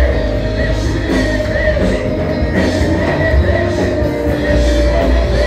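Loud live worship music from a church band, with drum kit, heavy bass and guitar.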